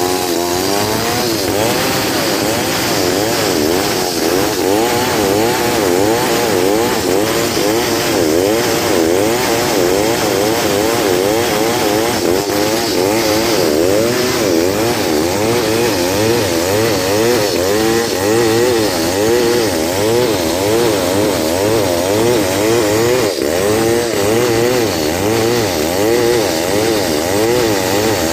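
Stihl 070 two-stroke chainsaw revving up about a second in, then cutting under load lengthwise along a log, its engine pitch wavering up and down as the chain bites.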